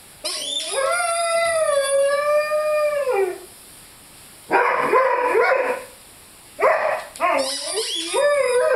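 Rhodesian Ridgeback puppy howling while playing with his squeaky chicken toy. One long wavering howl of about three seconds comes first; after a short pause come rougher, shorter cries, then a quick run of rising and falling yips and howls near the end.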